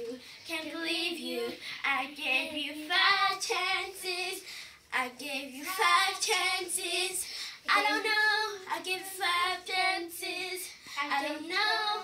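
Young girls singing a song with no instruments, in phrases about a second long.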